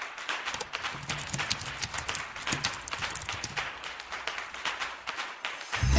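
Computer keyboard typing: a quick, irregular run of keystroke clicks as a search query is typed. Music starts just before the end.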